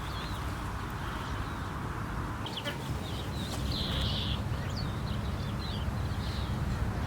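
Small birds chirping and trilling in short, quick notes, starting a couple of seconds in, over a steady low outdoor rumble.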